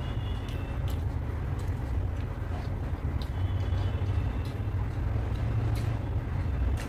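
A steady low rumble carries through, with a few soft clicks of chewing and of fingers tearing luchi on top of it.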